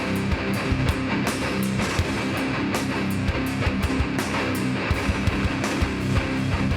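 Live heavy band playing an instrumental passage: loud electric guitars over bass and drums, with steady, frequent drum hits.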